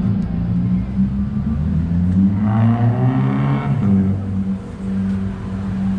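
Street traffic: a motor vehicle accelerates, its engine note rising in pitch from about one and a half seconds in until it levels off near four seconds, over a steady low engine hum.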